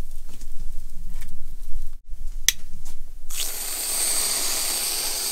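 Kitchen clicks and light scrapes, a sharp click about two and a half seconds in, then a steady hissing sizzle that starts suddenly past the halfway point: chaffle batter cooking and steaming in a mini waffle maker.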